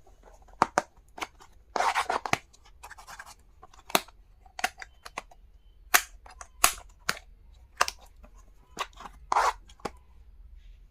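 Stationery and its packaging being handled by hand: irregular sharp clicks and taps, with a few short rustling swishes.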